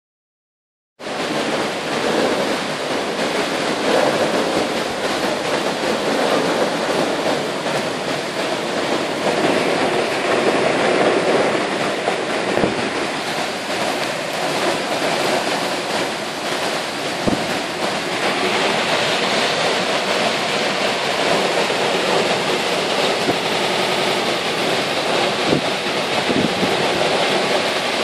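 Heavy rain downpour with strong wind through tree foliage: a dense, steady rush of rain that starts suddenly about a second in.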